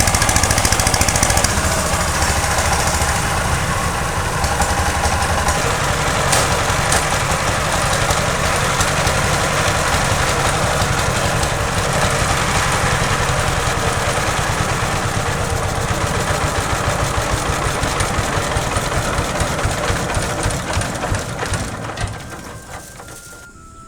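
A small engine-driven machine running steadily, with a dense rattling noise over a low engine beat. It dies away about 22 seconds in.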